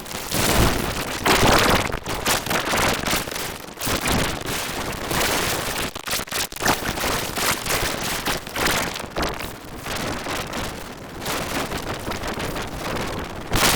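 Loud, harsh crackling noise of heavily distorted audio effects, dense and dry like static, with no recognisable speech.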